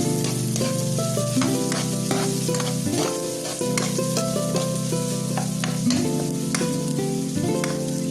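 Food sizzling as it fries in hot oil in a pan while it is stirred, the utensil clicking against the pan again and again. A melodic background music track plays over it.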